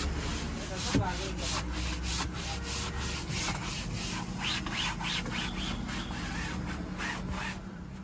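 Fabric car headliner being scrubbed with detergent: rapid back-and-forth rubbing strokes, about three or four a second.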